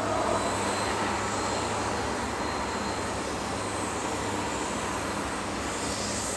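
Airliner engines running steadily: a broad rushing noise over a low, even hum, with a faint high whine.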